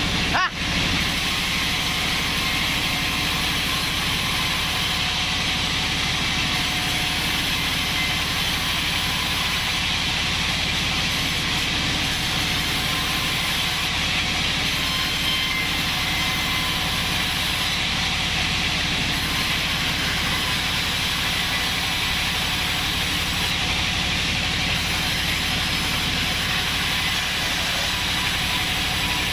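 Band sawmill running steadily as it saws an acacia log into planks: a constant machine drone under a steady hiss.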